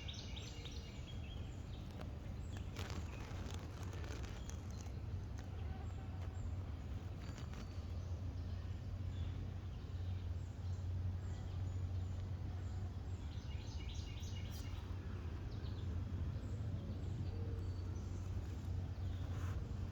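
Outdoor ambience: a steady low rumble with birds chirping in short rapid series near the start and again about two-thirds of the way through.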